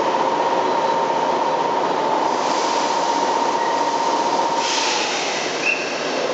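Keisei 3400-series electric train pulling out of a station: the rumble of the cars rolling, with a steady whine that fades about five seconds in as a hiss rises.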